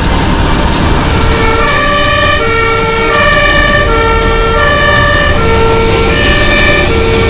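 A two-tone emergency siren, switching between a high and a low note in a regular cycle of about a second and a half, over a loud steady rumble. It sets in about one and a half seconds in.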